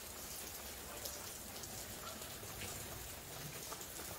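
Water from overhead sprinklers falling like rain onto the soil and shiitake mushroom logs: a steady, faint hiss of drops with small scattered taps. The sprinklers are running well, with the water landing on the mushroom logs.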